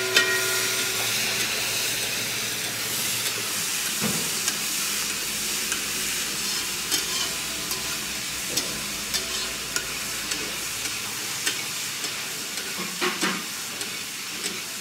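Raw chicken pieces sizzling as they fry in hot mustard oil with fried onions and whole spices in a metal kadhai: a steady frying hiss. A metal spatula stirs and scrapes the pan, giving scattered scrapes and clinks, with a ringing clink at the start.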